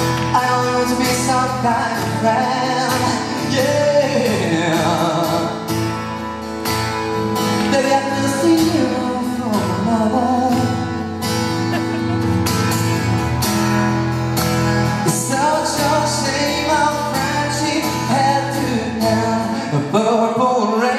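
A man singing a slow ballad into a microphone while strumming an acoustic guitar, amplified live through a concert PA.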